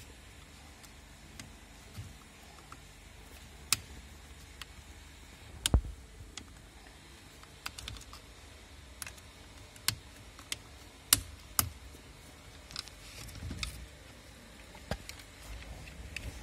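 Irregular sharp plastic clicks and light knocks as connectors and clips are worked loose from a Renault Sandero's steering-column switch assembly.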